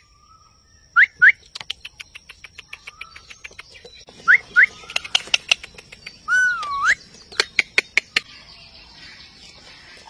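Indian ringneck parakeets calling: two short rising chirps about a second in, two more a little after four seconds, and a longer call that dips and then rises around six seconds. Rapid sharp clicks run between the calls.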